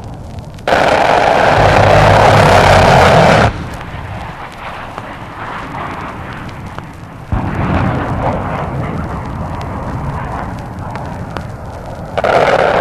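Vinyl LP recording of USAF jets and ordnance: a loud rushing blast with deep rumble starts under a second in and cuts off sharply about three seconds later. A second swell follows around seven seconds and another loud blast comes near the end, with record surface crackle throughout.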